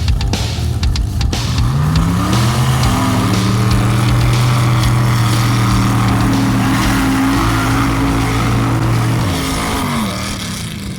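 Mud bog truck's engine revving up, held at high revs for several seconds, then dropping off near the end.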